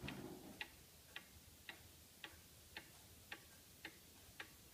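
Antique Black Forest cuckoo clock's pendulum movement ticking faintly and evenly, about two ticks a second.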